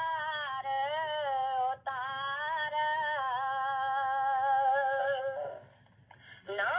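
A single high voice singing a devotional verse in long, drawn-out notes that waver slightly, without instruments. It breaks off about five seconds in and starts again near the end.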